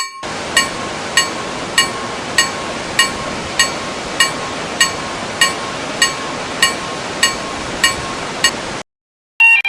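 Railroad crossing alarm ringing at a steady 'kan-kan' beat, about one and a half strikes a second, over a loud steady rushing hiss. Both cut off together near the end, and a different warbling alarm tone starts just after.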